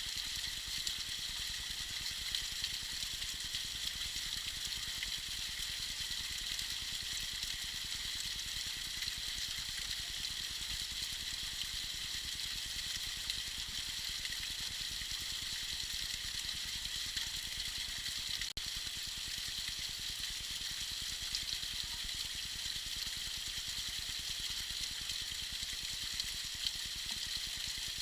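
Small icy waterfall trickling and splashing in a steady, high hiss, with a split-second gap about two-thirds of the way in.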